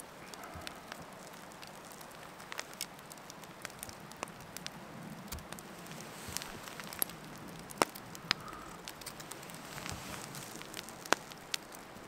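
Campfire crackling: irregular sharp pops and snaps over a low steady hiss, with a couple of louder snaps, one about eight seconds in and one near the end.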